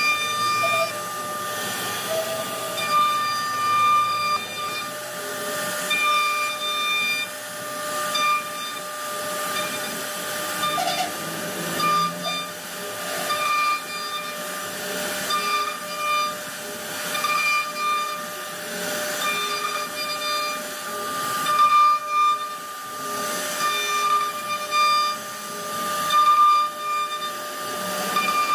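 CNC router spindle whining at a steady pitch while its bit carves a wooden bed panel, with a hiss of cutting that swells and eases every second or two as the bit moves through the wood.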